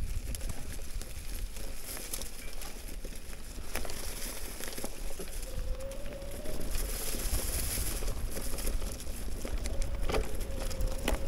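E-mountain bike riding over a leaf-covered dirt trail: tyres crackling and rustling through dry leaves over a low rumble, with scattered knocks from the bike. A faint, thin whine from the Shimano EP8 mid-drive motor rises slightly about halfway through and comes back near the end.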